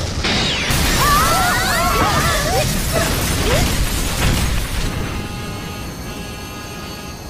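Anime soundtrack: a loud rumbling crash-like noise with high wavering cries over it for the first few seconds, then calm music of steady held chords from about five seconds in.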